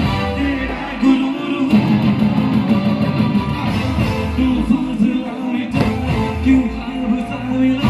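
Live band music played loud through a PA: a singer singing into a microphone over electric guitar and drums, with a steady dance beat.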